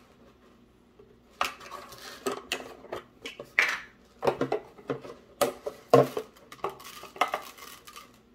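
Metal teaspoon clinking and scraping against a large plastic spice jar while scooping out coriander seeds, heard as irregular sharp clicks and knocks with a few louder clacks of the jar being handled.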